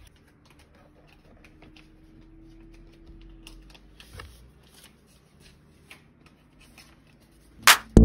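Faint, scattered clicks and taps, then one loud, sharp crack near the end.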